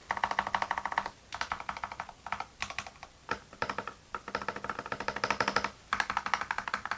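Fast typing on a Gamakay CK68 65% hot-swap mechanical keyboard with a stock hollow case, keystrokes clacking in quick runs broken by short pauses.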